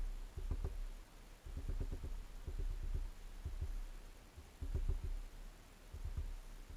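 Small bird pecking at a hanging seed feeder, heard as several clusters of quick, dull taps and knocks carried through the feeder's frame.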